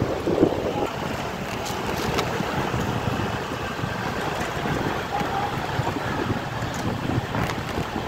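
Wind rushing over the microphone of a moving motorcycle, steady throughout, over the low running of the engine and surrounding traffic.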